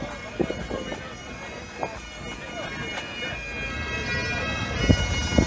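Bagpipes playing at a distance: a steady drone with the melody notes changing every second or so. A few short low thumps cut across it, about half a second in and twice near the end.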